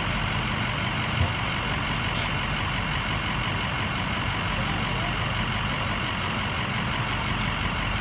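Fire trucks' diesel engines running steadily at idle, a low rumble under a constant broad hiss, with one brief knock about a second in.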